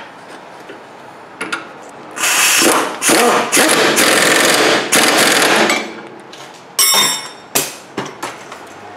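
Pneumatic impact wrench running down a 17 mm nut in bursts: a short burst about two seconds in, a longer run of about three seconds, then two short blips near the end.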